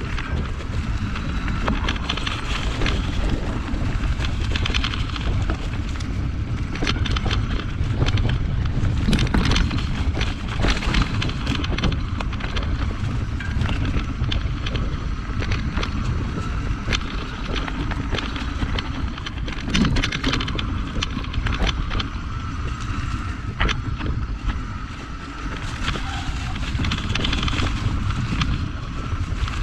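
A rigid Surly Krampus 29+ mountain bike rolling down a rocky trail: wind buffets the microphone with a steady rumble, and the bike clatters sharply again and again as it goes over rocks and bumps.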